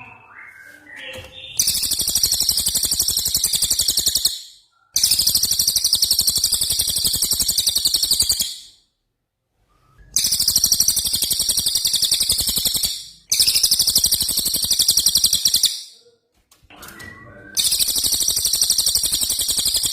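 A songbird's rapid rolling trills, the 'rol tembak' bursts used as a masteran track for training cage birds: a few rising chirps, then five long high trills of very fast, even notes, each a few seconds long with short pauses between.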